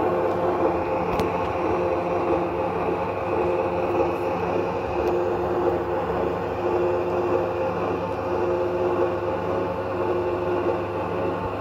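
Märklin gauge 1 model E91 electric locomotive under way, its ESU LokSound V4 XL decoder playing a steady electric-locomotive running hum through the model's speaker, with the model's wheels rolling on the track.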